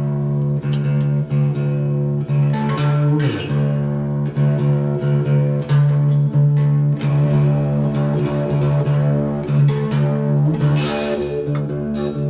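Background music: plucked guitar over a steady bass line, starting suddenly.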